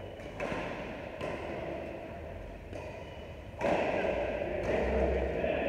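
Badminton rackets striking a shuttlecock, heard as about four sharp knocks with echoing tails; the loudest comes a little past halfway.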